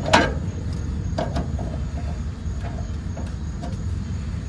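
A few sharp metallic clicks of hand tools working on the steering parts, the loudest right at the start and two more a little over a second in, over a steady low rumble.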